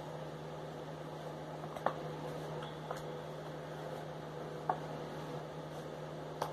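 Space heater running with a steady hum and hiss, with about four light clicks spread through.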